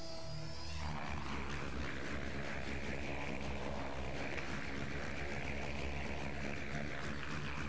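Thunder Tiger Raptor E700 electric RC helicopter in fast freestyle flight: the rotor blades whoosh over the motor's steady whine, with the rushing blade noise coming in about a second in as it passes low.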